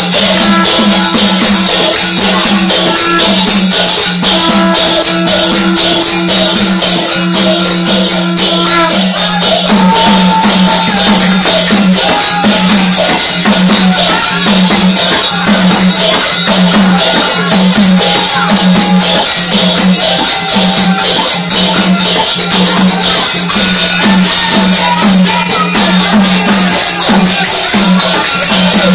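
Loud, continuous jingling and rattling percussion over a low note that pulses about once a second; a steadier higher tone drops out about nine seconds in.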